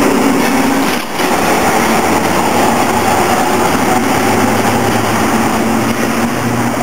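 Birney single-truck electric tram running along street track, with a steady hum from its motors that shifts slightly in pitch as it goes.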